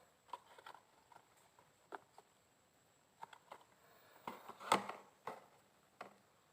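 A wireless computer mouse being handled or knocked about: about a dozen light, irregular taps and soft clicks, the loudest near the end.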